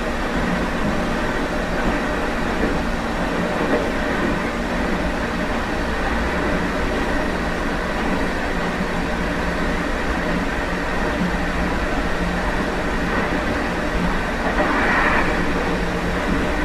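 Meitetsu 1030 series electric train running on its bogies (running gear taken over from the 7500 series Panorama Car), a steady rumble of wheels, motors and track as heard from the vestibule deck. A brief swell of higher-pitched noise comes about fifteen seconds in.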